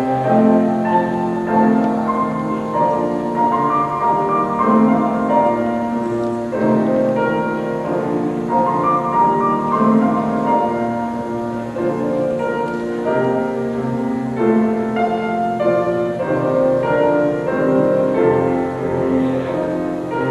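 Piano music in a classical style, held notes changing about once a second.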